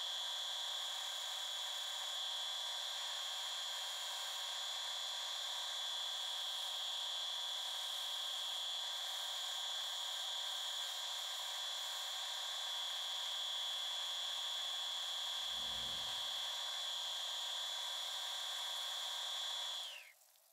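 Lathe motor running steadily with a high whine while its sanding disc attachment spins. Just before the end the whine falls in pitch and dies away as the lathe is switched off and spins down. There is a brief low thud about 16 seconds in.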